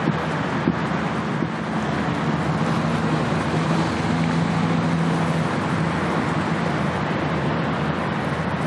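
Steady low engine drone over a broad wash of wind and water noise.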